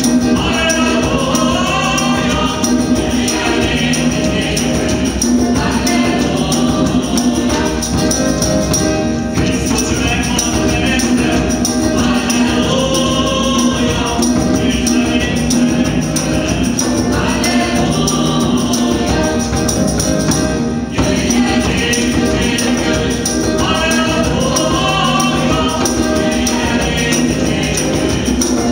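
Women's gospel choir singing an upbeat praise song in Hungarian in several voices, with a tambourine jingling on the beat.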